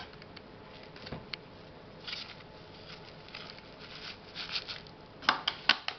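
Light rustling and scratching of fingers working rooted African violet plantlets in a small plastic cup of perlite, with a quick run of sharp clicks near the end as the cup is handled.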